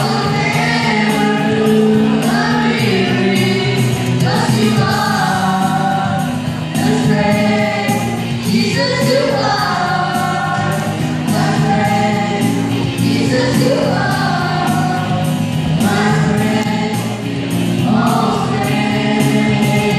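Boys singing together into microphones over amplified backing music with a steady beat.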